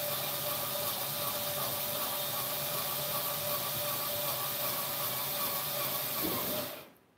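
Electric drill running steadily with a whine as it bores a hole through a painted wooden panel. Near the end the motor winds down with a falling pitch and stops.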